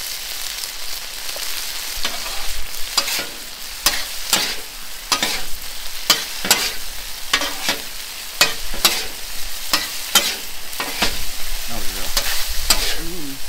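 Diced pork belly and peppers sizzling in a reducing sauce on a steel flat-top griddle. Metal spatulas scrape and tap across the griddle top over and over, about one or two strokes a second, as the food is tossed.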